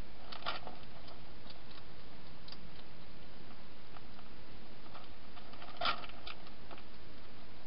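European hedgehog chewing dry food inside a plastic feeding box: scattered crisp clicks, bunched about half a second in and again near six seconds, over a steady hiss.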